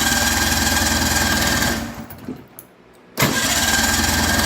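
Snowmobile's two-cylinder engine being cranked by its electric starter in two runs of about two seconds each, with a steady starter whine over rapid cranking pulses. It turns over without catching and running.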